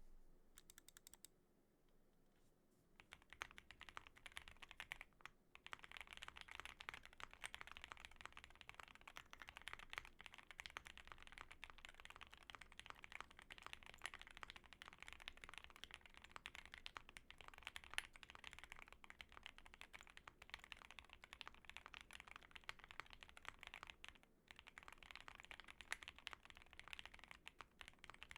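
Fast, continuous typing on a custom mechanical keyboard: SP Star Polaris Gray switches lubed with Krytox 205g0 on a POM plate, with GMK Modo 2 keycaps and foam in the case. A few separate key clicks come first, then steady quick typing starts about three seconds in, with brief pauses around five seconds in and near the end.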